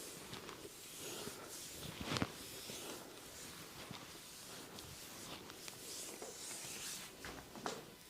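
Oiled hands rubbing and kneading skin in a body massage: a wet rustling with many small clicks. A sharper smack or click comes about two seconds in and another near the end.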